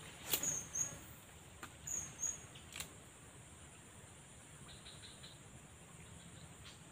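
A few sharp clicks from a spinning rod and reel being worked through a cast and retrieve, with short high chirps in pairs during the first few seconds.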